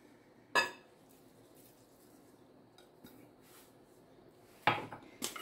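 Kitchen clatter from handling a ceramic salt pot: one sharp clink about half a second in, a few faint ticks, then a louder knock near the end as it is set down on the granite worktop.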